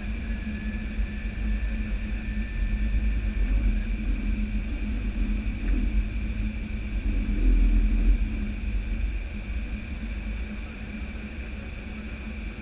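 Cockpit noise of an Airbus A320 in flight on approach: steady rumble of airflow and engines with a constant hum. The low rumble swells for a moment about seven to eight seconds in.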